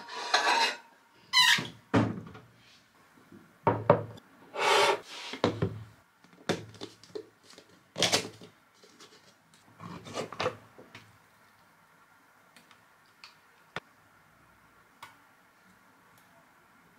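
Handling a plastic tub of whipped fresh cheese on a stone counter: a series of short rustling, scraping and knocking bursts as it is set down and its plastic lid and foil seal are pulled off. After that come a few faint, light ticks as a spoon scoops the cheese into a glass mug.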